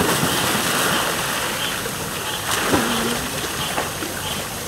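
Big splash of a person jumping into a swimming pool, then water churning and sloshing as the swimmer surfaces, easing off after about two seconds. A brief voice comes a little under three seconds in.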